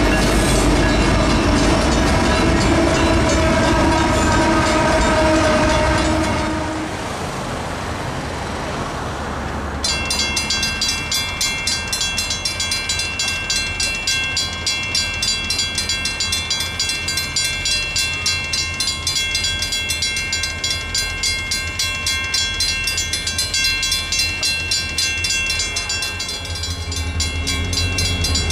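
A Union Pacific freight train passes with low rumble and a steady multi-note tone over it for about six seconds. After a short lull, a mechanical railroad crossing bell rings with rapid, even strokes, each clang ringing on into the next.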